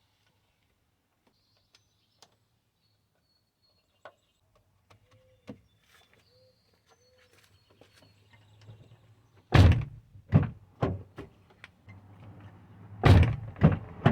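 A Toyota Sienna's door being shut and opened: two loud thunks about three and a half seconds apart, with smaller clicks of the latch and door between them. The door check stop has just been welded, and the door closes with no problem.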